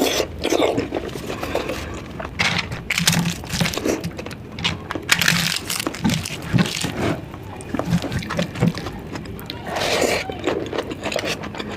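Close-miked eating sounds: wet chewing, lip smacks and mouth clicks, coming irregularly.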